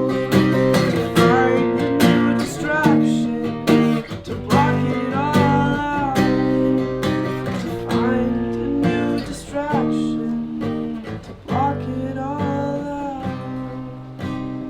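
Acoustic guitar music: strummed chords with a melodic line of bending notes over them, getting quieter toward the end as the song winds down.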